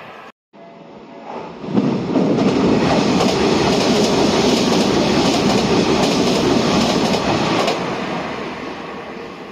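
Electric commuter train passing through the station without stopping, its wheels clattering over the rail joints. The sound builds about a second and a half in, stays loud for about six seconds, then fades as the train moves away.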